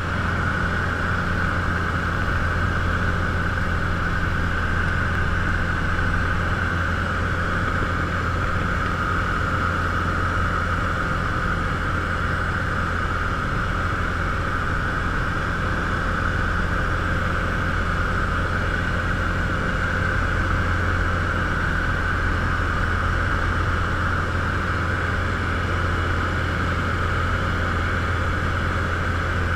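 Robin DR400 light aircraft's piston engine and propeller droning steadily in flight, heard from inside the cockpit as a constant low hum with a higher buzz over it.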